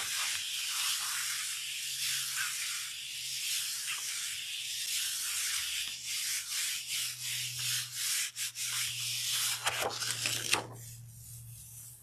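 Hands rubbing over a sheet of paper laid on a painted gel printing plate, burnishing it to pull a monoprint: a steady papery swishing that stops about ten and a half seconds in, after a few light ticks.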